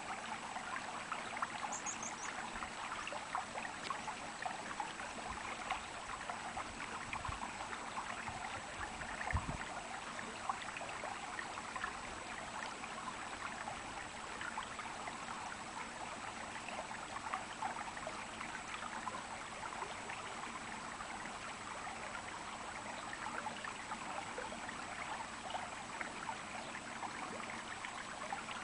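Stream water babbling and trickling steadily, with a dull low thump about nine seconds in.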